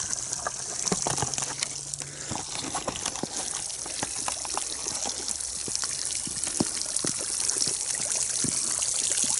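Water spurting and trickling from bullet holes in a plastic 55-gallon drum full of water, a steady hiss that grows louder toward the end, with scattered light clicks.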